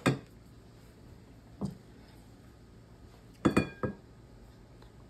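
A few clinks and knocks of a spatula against a glass mixing bowl: a sharp click at the start, a dull knock about a second and a half in, and a louder double clink with a brief glassy ring past the middle.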